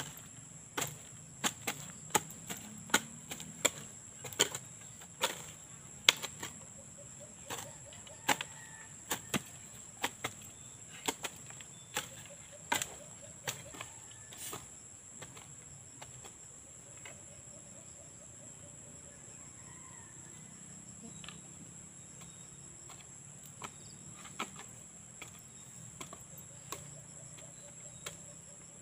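Hand hoes chopping into soil to clear weeds: sharp, irregular strikes about one to two a second, thinning out in the middle and picking up again near the end. A steady high insect drone runs underneath.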